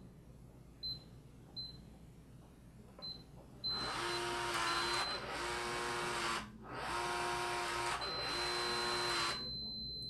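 Schlage Connect touchscreen deadbolt beeping as four keypad digits are pressed, then its motor running in two spells of about three seconds each, driving the bolt. A steady high tone sounds through the last two seconds. The lock is operating incorrectly and needs a factory reset.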